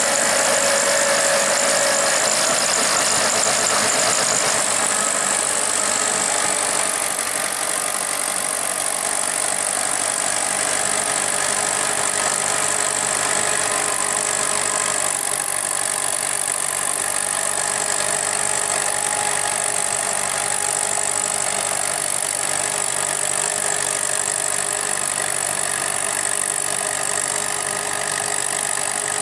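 Massey Ferguson 185 tractor's four-cylinder diesel engine running steadily under load, driving a rear rotary tiller through flooded paddy mud.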